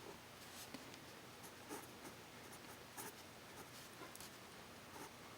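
Near silence: faint room tone with scattered small, faint clicks and scratches.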